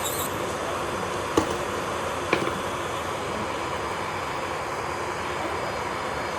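Steady whirring of a small electric motor, with two light clicks about a second apart near the start.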